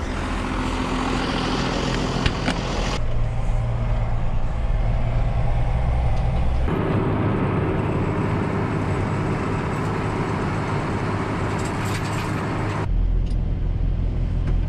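John Deere tractor engine running as it travels, pulling a manure spreader. The sound changes abruptly about three, seven and thirteen seconds in.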